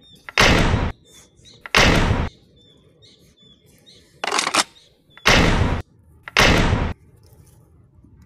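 Five gunshot sound effects, each a loud blast about half a second long, fired in an uneven string with a two-second pause after the second one. Birds chirp faintly between the first shots.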